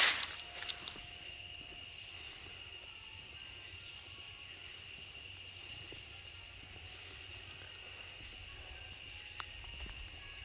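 Steady, high-pitched chorus of night insects chirring outdoors. A few brief rustling footsteps sound right at the start.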